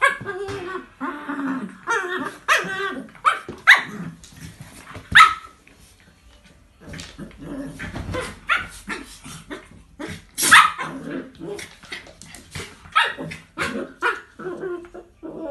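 Two dogs, a Chinese Crested powderpuff puppy and a Jack Russell terrier, play-fighting: growling with sharp barks scattered throughout and a brief lull about six seconds in.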